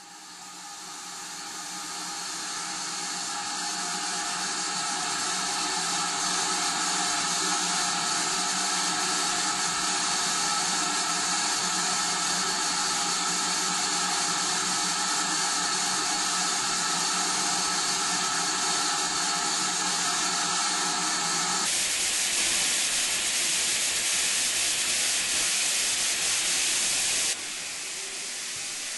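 GWR 2-6-2 tank steam locomotive No. 4141 standing in the station letting off steam: a loud, steady hiss with a faint ringing whistle in it, fading in at the start. About three quarters of the way through it changes abruptly to a plainer, rougher hiss, which drops quieter near the end.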